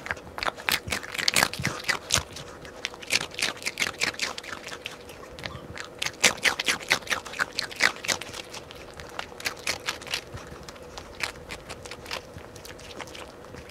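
Dog crunching a dog biscuit: rapid, irregular runs of sharp crunches with brief pauses between bites. A faint steady hum sits underneath.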